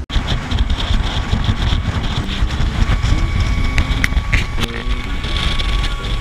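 Tohatsu outboard motor driving an inflatable dive boat at speed, a steady rumble with the rush of the wake, and wind buffeting the microphone.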